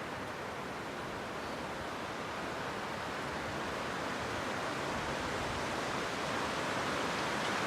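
Wind blowing outdoors: a steady rushing noise that swells slowly louder.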